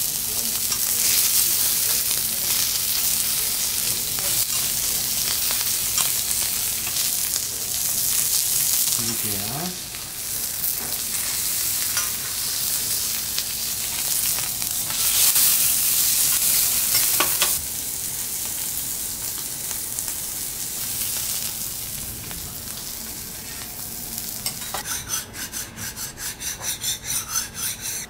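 Pieces of Korean beef sirloin sizzling on a hot steel teppanyaki griddle as metal spatulas scrape and turn them. The sizzle swells for a couple of seconds past the middle, then eases, and a quick rhythmic run of strokes comes in near the end.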